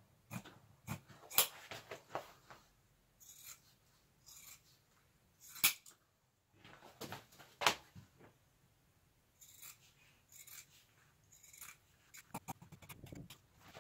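Scissors cutting foam-backed upholstery pieces: irregular snips, with rustling and handling of the material in between.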